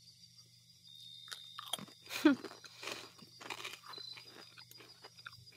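Someone biting and chewing crunchy chips: a run of crisp crunches starting about a second in, with a short voiced hum partway through.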